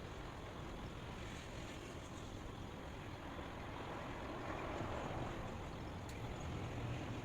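Steady white noise, a broad even hiss that swells slightly in the middle and again near the end.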